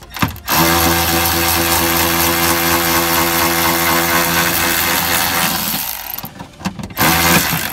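Cordless drill/driver running steadily for about five seconds as it backs out a screw from a car door's window regulator, then a second short run near the end.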